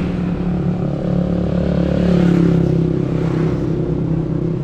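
Motorbike engine running steadily while riding along the road, a little louder about two seconds in.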